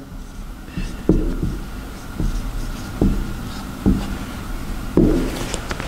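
Dry-erase marker writing on a whiteboard: five sharp taps and knocks, about one a second, as the tip and hand strike the board, with faint squeaky strokes near the end.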